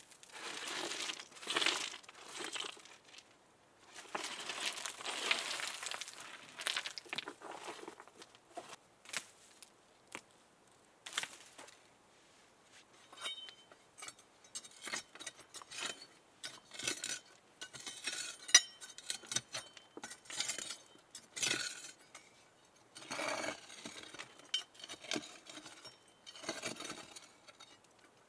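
Hands working among rocks and loose debris: irregular rustling and scraping, with many small clinks and knocks of stone on stone.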